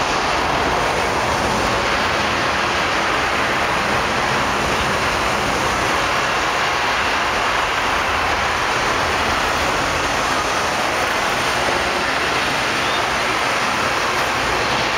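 Steady hiss of artificial rain falling in a staged indoor rain shower.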